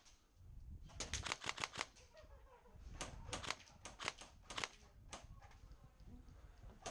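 Airsoft guns firing in short rapid bursts of sharp clicks, several bursts a second or so apart.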